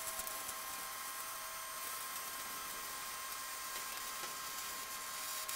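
Electric arc welding: the arc's steady hissing crackle during a root pass weld, over a steady thin high tone.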